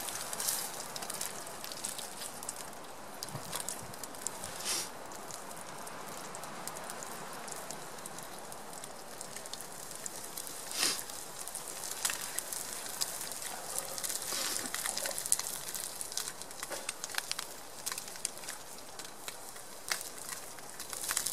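Spam frying in a pan over a campfire: a steady sizzle with scattered sharp pops and crackles, the loudest about five and eleven seconds in.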